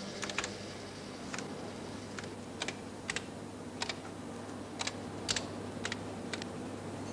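Keys being pressed one at a time on a computer terminal keyboard during data entry: about ten separate clicks, unevenly spaced, over a steady low hum.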